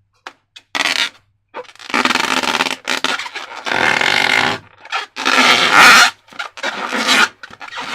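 Slime being handled: sticky, wet squishing and scraping in a run of irregular bursts, each half a second to a second and a half long, with short pauses between them.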